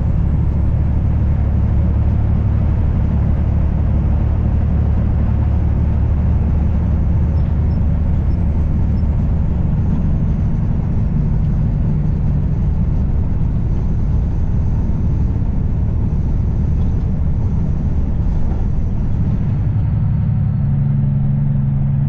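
Semi truck's diesel engine and road noise heard from inside the cab while cruising on the highway: a steady, loud, low drone. Near the end the drone shifts to a higher hum.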